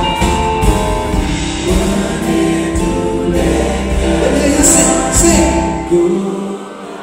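Live band playing, with voices singing long held notes over electric bass, electric guitar and drum kit. The bass and drums drop out about six seconds in, leaving the voices and guitar quieter.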